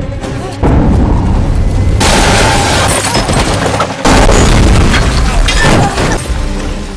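Film fight sound effects: heavy booming impacts and crashes, with three big hits about half a second, two seconds and four seconds in, over film score, fading near the end.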